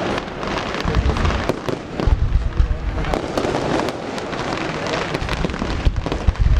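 Fireworks display: a dense run of crackling bangs and pops, with heavier low booms of shells bursting now and then.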